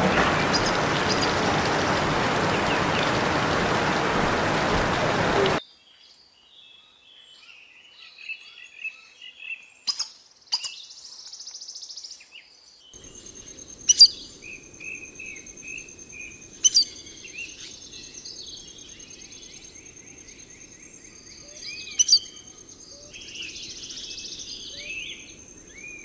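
Steady hiss of heavy rain falling on rainforest foliage, which cuts off suddenly about five seconds in. Then quiet forest: birds chirping, a few sharp clicks, and from about halfway through a thin, steady high whine.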